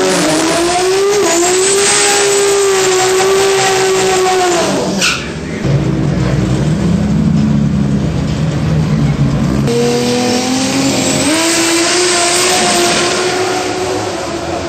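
Toyota 2JZ drag-car engine held at high revs through a smoky burnout, dropping to a low rumble about five seconds in, then revving back up near ten seconds and held high again.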